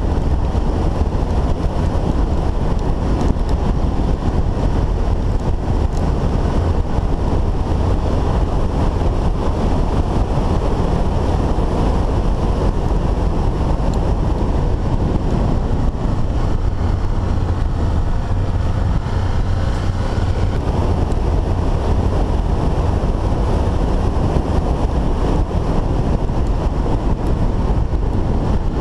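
Onboard sound of a dual-sport motorcycle riding a dirt road: steady engine and tyre noise, with heavy wind buffeting on the microphone.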